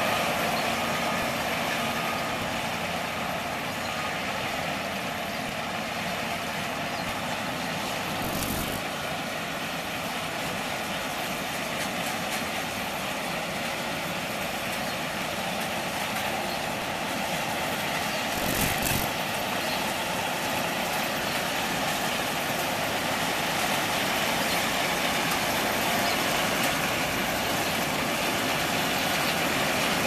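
New Holland CR 8080 combine harvester running while cutting soybeans: a steady drone of engine and threshing machinery. It grows louder over the last third as the machine comes closer.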